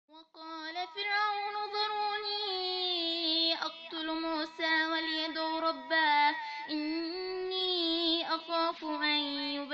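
A female voice chanting Qur'anic recitation (tajweed): a single high voice drawing out long, melodic held notes with short breath breaks, unaccompanied.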